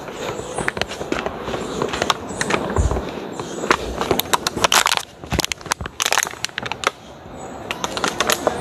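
Footsteps crunching irregularly on a rough trail, with a quieter stretch in the second half broken by sharp crunches.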